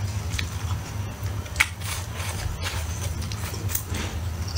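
Close-miked chewing of spicy stir-fried meat: scattered wet mouth clicks and smacks over a steady low hum, with one sharp click about one and a half seconds in the loudest.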